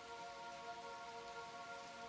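Steady rain hiss, with a soft sustained music chord held underneath.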